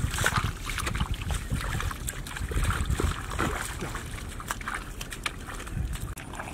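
Shallow water sloshing and splashing in uneven bursts, with wind rumbling on the microphone.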